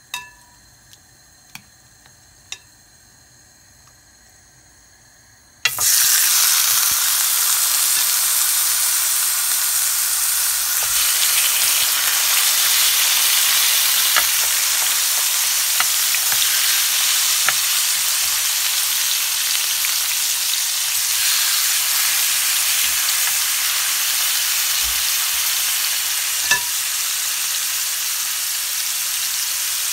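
Marinated pork chops laid onto a hot ridged grill pan, setting off a loud sizzle that starts suddenly about six seconds in and carries on steadily, easing slightly toward the end. Before it, a few light clicks.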